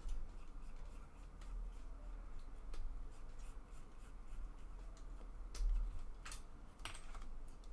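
Quiet desk-work sounds: light scratching and rustling with scattered small clicks of plastic model-kit parts being handled, the sharpest clicks coming about five and a half to seven seconds in.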